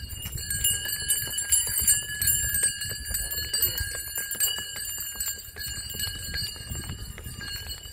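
Bells worn by a bull jingling as it is led away on foot, with the irregular clop of its hooves.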